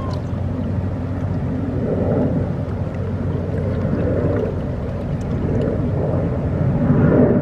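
Boat engine running with a steady low hum, over the wash of wind and water, swelling a few times.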